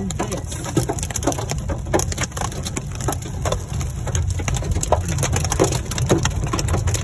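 Hail striking the roof and windshield of a Ford Mustang, heard from inside the car as many sharp, irregular knocks, several a second, over a steady low rumble of the moving car.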